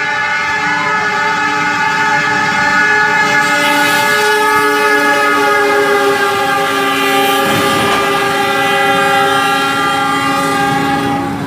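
Diesel locomotive's multi-tone air horn sounding one long continuous blast, its pitch sagging slightly as it goes, cutting off at the end. A brief rough burst of noise breaks in about seven and a half seconds in.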